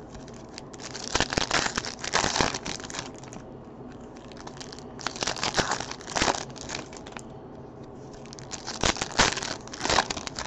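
Silver foil wrappers of Topps Chrome football card packs being torn open and crinkled by hand, in three bouts of crackling a few seconds apart.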